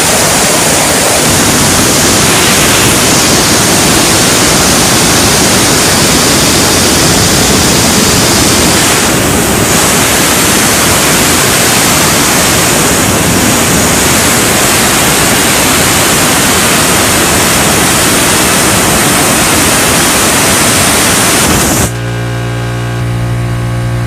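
Compressed air blasting steadily from an air-compressor nozzle onto a fidget spinner: a loud, even hiss. About two seconds before the end the air stops, and a steady low hum with many even overtones remains.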